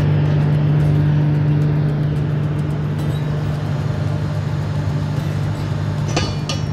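Hydraulic excavator's diesel engine running steadily with a constant low drone while its scrap magnet lifts metal from a pickup bed. A quick cluster of metal clanks about six seconds in.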